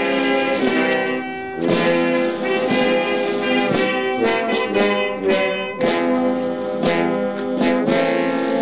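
Brass band playing held chords that change every second or so.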